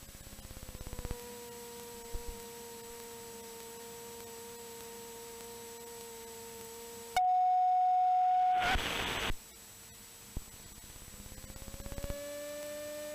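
Cessna 182T cockpit audio through the intercom: the steady note of the engine at taxi power, then about seven seconds in a loud steady alert tone lasting about a second and a half, the G1000's low-vacuum warning, followed by a short burst of hiss. Near the end the engine note rises slightly and falls again.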